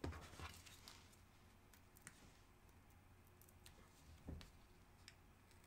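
Near silence with a few faint clicks and taps from a paper card layer and a craft tool being handled, and one soft thump a little past four seconds in.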